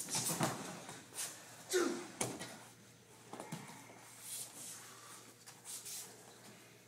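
Martial-arts throws and takedowns on padded mats: several thumps of bodies hitting the mat, with rustling of heavy cotton uniforms, over the first couple of seconds. The loudest thump, about two seconds in, comes with a short grunt. After it there is quieter shuffling of bare feet and uniforms.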